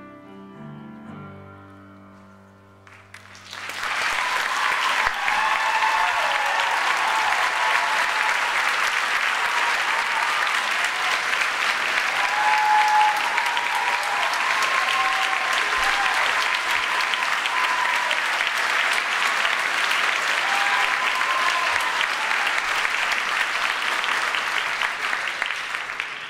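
The final chord of a male choir with piano fades away, then about three seconds in an audience breaks into loud sustained applause with a few cheers over the clapping, dying down near the end.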